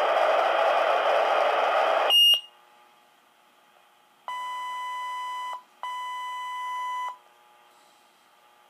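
Motorola Minitor V fire pager: radio static hiss from its speaker cuts off with a short high beep about two seconds in. After a quiet gap come two long, steady beeps of about a second and a half each, the alert tones ahead of the next dispatch.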